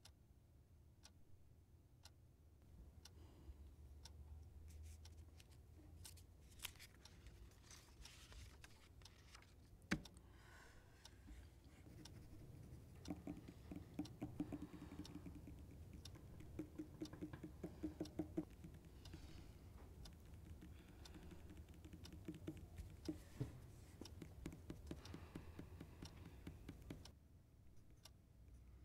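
Faint scratching of pencils writing on paper, with scattered light ticks and clicks and one sharper click about ten seconds in.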